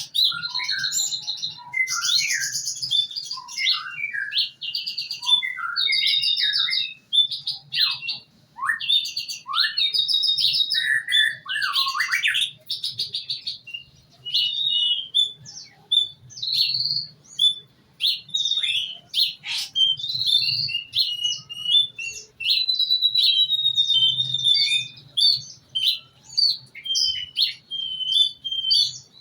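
A male pastol songbird singing continuously in rapid trilled, chattering phrases, then shorter, sharper chirps in the second half.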